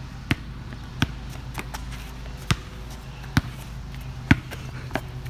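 A basketball being dribbled, with sharp bounces roughly once a second at an uneven pace. A steady low hum runs underneath.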